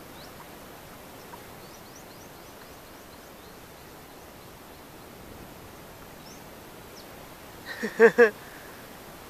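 Steady open-air hiss over a river with a few faint, short high bird chirps. Near the end comes a short, loud pitched call of about four quick notes.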